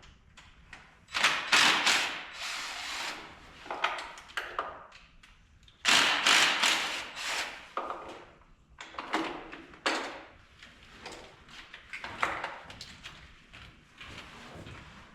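Irregular knocks, clunks and rustling of hands-on work, in uneven bursts with short pauses between them; the loudest come about a second in and about six seconds in.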